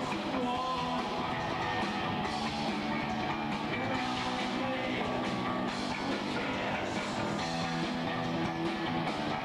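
Rock band playing live: electric guitar and drum kit, continuous and loud.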